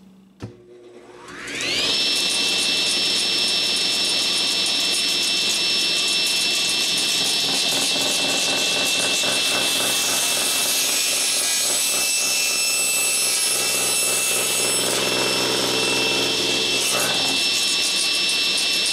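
Table saw started with a knock, its motor winding up in a rising whine and then running at a steady high pitch. From about ten seconds in, for roughly five seconds, the blade cuts through an epoxy-cast corn cob, roughening the sound.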